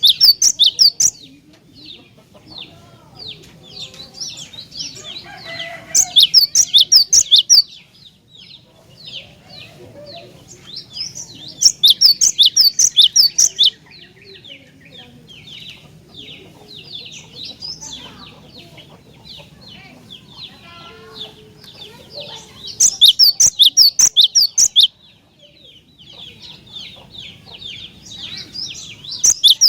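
Cinereous tit (gelatik batu) singing: about five loud, roughly two-second runs of rapid repeated sharp high notes, with steady fainter chirping between the runs.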